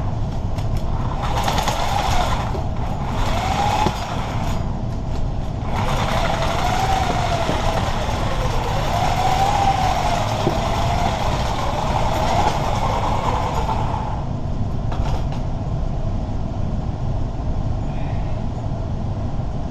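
A reciprocating saw runs in bursts, its motor pitch rising and falling as the blade works down into a clogged drain grate, and stops about 14 seconds in. A steady low rumble continues underneath throughout.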